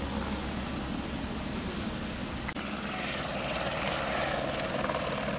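Steady outdoor noise, then, from an edit about halfway in, a helicopter's rotor and turbine engine running as it flies low nearby.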